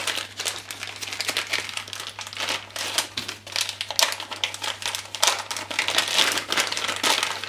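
Thin plastic packaging crinkling and rustling in the hands, an irregular run of crackles throughout.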